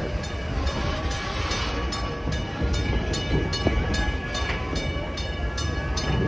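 Open-sided wooden-bench passenger coaches of a heritage train rolling slowly past on the track: a steady rumble of wheels on rail with regular light clicks a few times a second.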